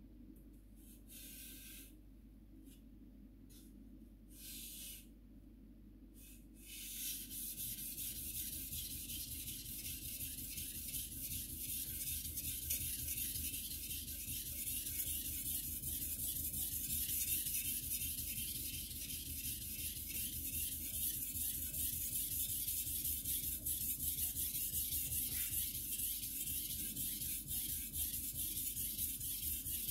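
A few short hisses, then a white-steel (Shirogami #2) gyuto blade stroked back and forth on a waterstone: a steady gritty rasp that begins about seven seconds in.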